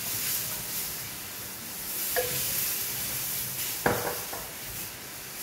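Milk sizzling in a hot stainless steel pan as it is stirred into sautéed corn and spinach with a wooden spatula. The spatula knocks against the pan twice, about two and four seconds in, each knock leaving a short metallic ring.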